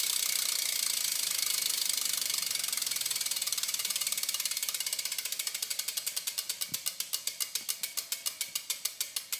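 Profile Mini BMX rear hub freewheeling as the wheel spins down: a fast, dense ratchet buzz from the hub's pawls that slows into separate clicks, spreading further apart and fading as the wheel comes to rest.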